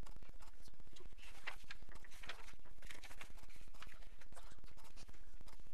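Paper rustling and handling as the drawing sheet is changed for a blank one. There are a few hissy rustles spread through it.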